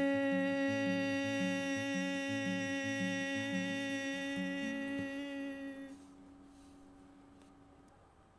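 A singer holds one long, steady note for about six seconds over softly picked low acoustic guitar notes. Both fade out about six seconds in, leaving a quiet pause.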